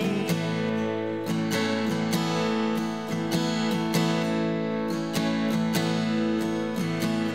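Steel-string acoustic guitar playing an instrumental break of a folk song: steady strummed chords at an even pulse.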